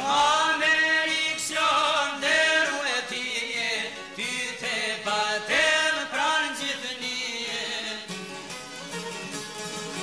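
Albanian folk song: men's voices singing a long, ornamented line over plucked long-necked lutes (çifteli). The singing stops about eight seconds in, leaving the plucked strings playing on.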